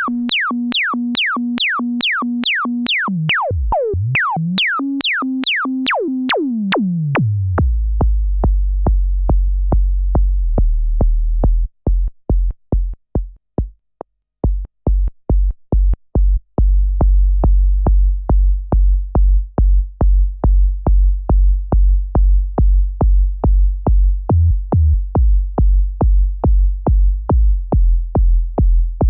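Electronic background music: a drum-machine beat with synth tones gliding downward. A heavy bass line comes in after about seven seconds and drops out briefly near the middle.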